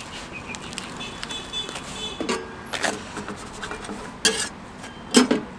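A cleaver chopping a folded jianbing on the iron griddle, cutting through the crepe and its crisp fried cracker. The blade knocks sharply against the griddle several times, the loudest stroke near the end.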